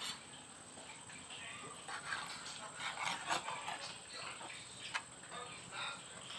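Knife slicing through raw stingray liver on a plastic cutting board: soft cutting and scraping with a few light taps of the blade on the board.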